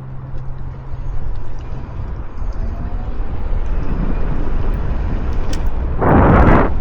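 Wind and road rumble on the microphone while riding an Inmotion V12S electric unicycle, growing gradually louder as it picks up speed. A loud burst of wind noise comes near the end.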